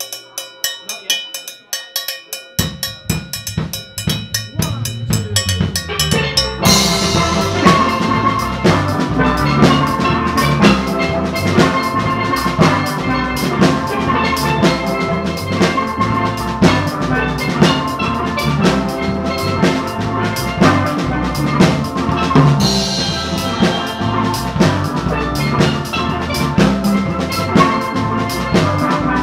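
Steel drum band playing live. High pans play a quick repeated figure alone, the bass comes in after about two and a half seconds, and the full band with drums joins about six and a half seconds in and keeps a steady beat.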